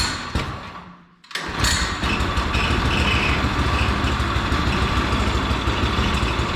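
Harbor Freight Predator small gas engine in a riding lawnmower starting from cold: a short burst that dies away, then it catches about a second in and runs steadily with a fast, even beat.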